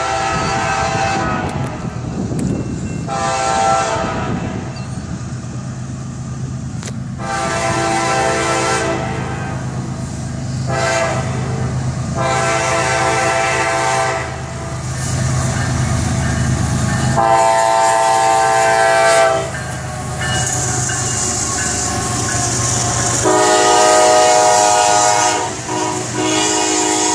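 Kansas City Southern freight locomotive blowing its air horn for road crossings: about seven blasts, mostly long with a short one among them, over the steady drone of the diesel engine. The rolling noise of the train builds as it comes up and passes.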